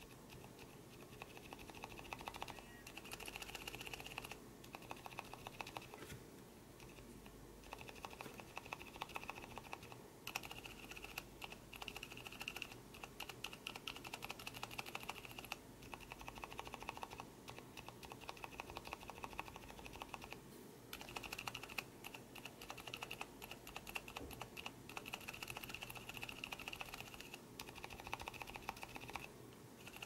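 Rapid runs of key presses on two Gateron Ink Black Silent linear switches in a carbon plate, one lubed with liquid Teflon and one stock: soft, damped clacks in quick bursts with short pauses between. A high ring rides on the presses, which the uploader puts down to the stock switch's springs ringing like bells, where the lubed switch's spring is silent.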